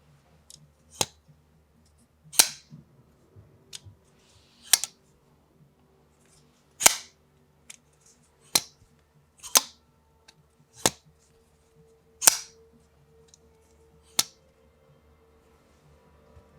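Civivi RS71 folding knife snapping open and shut over and over: about a dozen sharp metallic clicks, one every second or two, some with a brief ring, over a faint steady hum.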